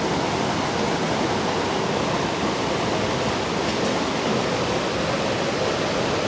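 Stream water cascading down rock slabs in a small waterfall: a steady, even rushing.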